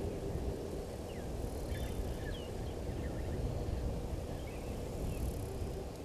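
Steady low outdoor rumble with faint, scattered bird chirps and short whistles coming and going over it.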